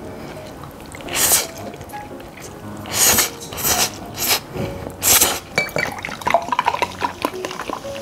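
Jjapaghetti noodles slurped in about five quick bursts, then clear soda poured into a cup, fizzing and crackling, over light background music.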